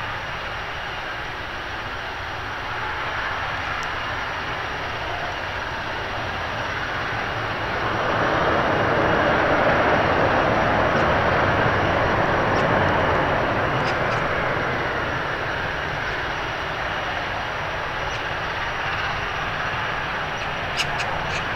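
Airbus A321 jet engines running as the airliner rolls along a wet runway, a steady rush with a faint high whine. The rush swells about 8 seconds in and eases again a few seconds later.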